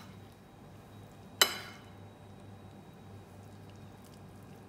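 A single sharp, ringing clink of a metal spoon against a dish about a second and a half in, over a faint steady low hum.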